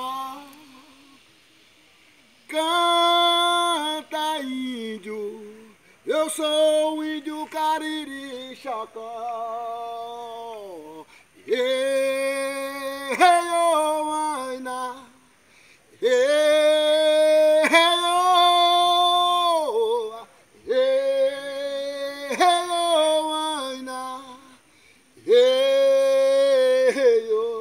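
A man singing a traditional Kariri-Xocó chant unaccompanied, in a string of sung phrases a few seconds long with held notes, separated by short pauses. Several phrases end with a downward slide in pitch.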